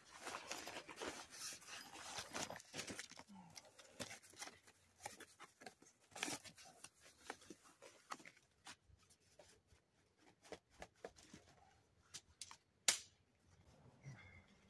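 Rustling and handling noise as a new Guidesman Twin Lakes backpacking tent is unpacked from its nylon carry bag and cardboard box: scattered soft clicks and crinkles, with one sharp snap near the end.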